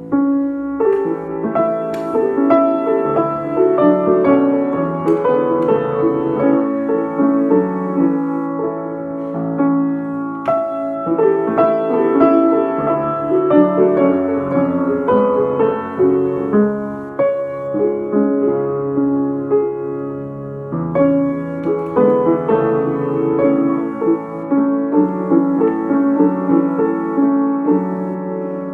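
A 47-year-old Rönisch piano being played: a continuous passage of melody over chords, the struck notes ringing on.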